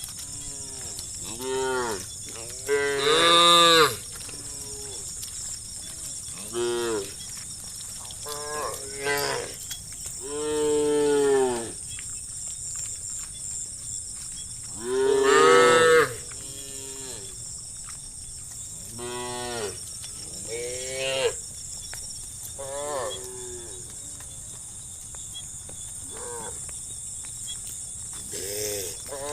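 Cattle mooing: a dozen or so separate calls from several cows, some short and some drawn out, the loudest about three and fifteen seconds in. A steady high hiss sits behind them.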